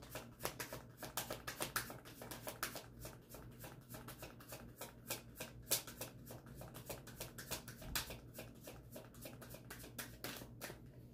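Tarot deck being shuffled by hand, overhand style: a quick, irregular run of soft card flicks and riffling taps, faint.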